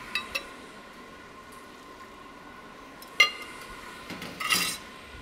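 Kitchenware clinking on a demonstration table: a couple of light clinks near the start, one sharp ringing clink about three seconds in, and a short clatter a little later.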